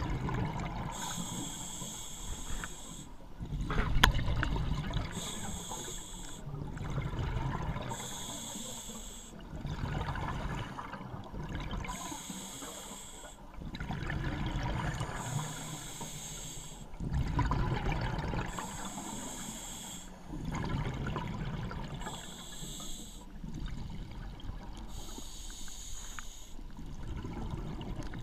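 Scuba diver breathing through a regulator underwater: a hissing inhalation alternates with a low bubbling exhalation, about one breath every three to four seconds. A sharp click about four seconds in.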